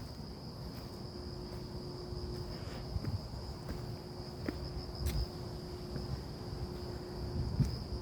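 Insects trilling in one steady, unbroken high-pitched tone, over a low rumble with a few soft thumps.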